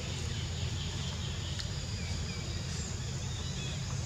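Outdoor ambience: a steady high insect buzz with a few short bird chirps over a low steady rumble, and one faint click about one and a half seconds in.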